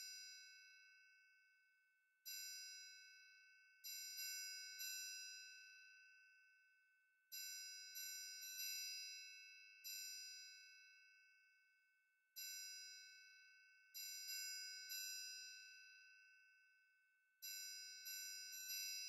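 Soft background music of chime- or glockenspiel-like bell notes, each ringing and fading, played in a short phrase of single notes and quick groups of three that repeats about every five seconds.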